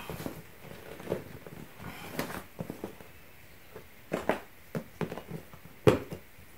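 Hands moving over an inflatable dinghy's PVC fabric and picking up a plastic valve: scattered rustles and small knocks, the sharpest one about six seconds in.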